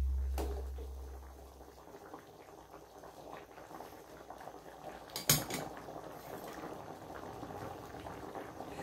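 Curry simmering quietly in a metal wok while a spoon stirs it, scraping and clinking against the pan, with one sharp knock of the spoon on the wok about five seconds in. Background music fades out in the first second or two.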